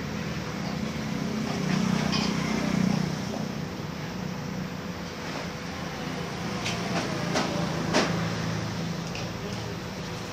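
Workshop background of a steady low hum, with a few light metal clicks past the middle as the flat bars of a steel gate frame are handled.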